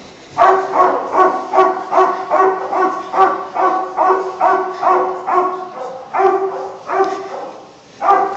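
A dog barking over and over in a fast, even run, about two to three barks a second, all at much the same pitch, with a brief pause near the end.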